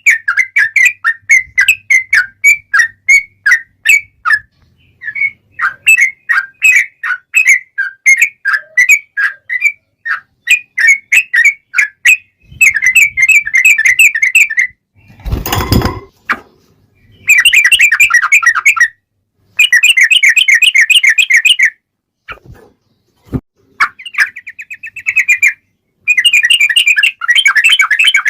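Sooty-headed bulbul (trucukan) singing in loud, quick runs of bubbly chirping notes. Some runs are long, rapid trills: the 'ropel panjang' prized in fighting song. About fifteen seconds in, a short loud burst of noise cuts across the song.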